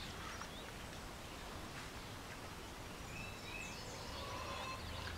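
Outdoor rural ambience: a steady low background hum with faint bird chirps, a few short high calls coming about three to four seconds in.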